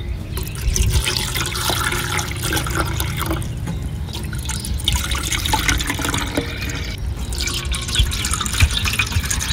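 Sugar-water and yeast bait being poured from a plastic jug into plastic hornet traps, splashing as it fills them, in a few pours with short breaks between.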